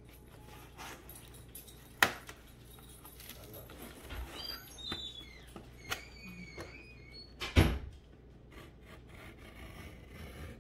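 Utility knife cutting into plastic packaging: scattered scraping and creaking with short squeaky glides in the middle, and two sharp knocks, one about two seconds in and a louder one about seven and a half seconds in.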